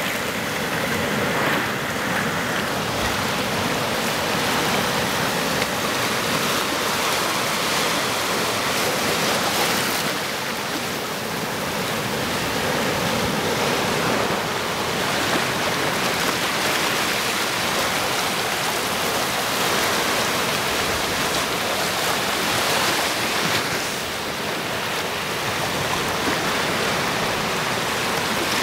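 Choppy sea washing and splashing among shoreline boulders: a steady rush of surf that swells and eases slightly, with a brief lull a little after the middle.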